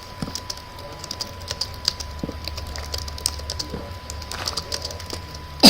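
Typing on a computer keyboard: quick, irregular key clicks, with a faint steady high tone behind them.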